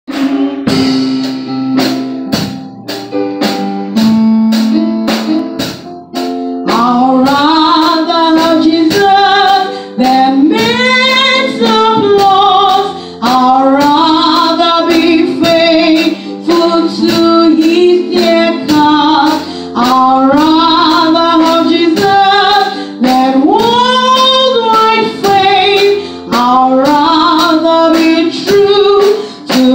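A woman singing solo into a microphone over instrumental accompaniment with a steady beat. The accompaniment plays alone for about the first six seconds before her voice comes in, held and wavering on long notes.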